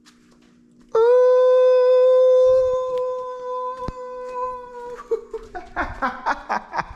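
A man's voice holding one long, loud, high sung note for about four seconds, then breaking into short choppy bursts of laughter.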